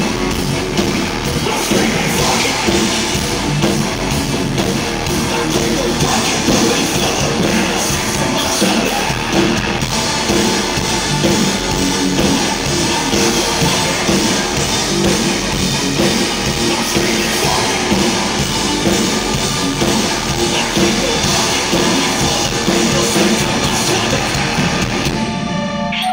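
A heavy rock band playing loud live, with pounding drums and guitars, heard from the audience. The music stops abruptly about a second before the end.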